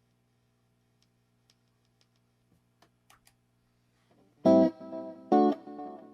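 Fernandes Strat-style electric guitar. After about four seconds of faint steady hum and a few small clicks, two loud strummed chords ring out, the second about a second after the first.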